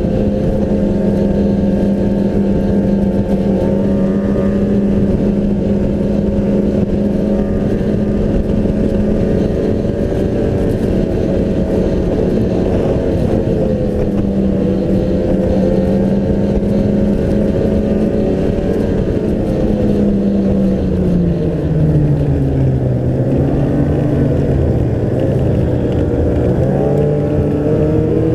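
Snowmobile engine heard from on board, running at a steady cruising speed. About 20 seconds in, the engine note drops as the sled slows, then rises and falls with the throttle.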